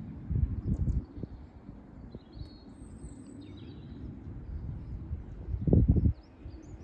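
Wind buffeting a phone's built-in microphone, a low rumble that surges in two strong gusts, about half a second in and again near the end. Faint bird chirps and whistles come through between the gusts.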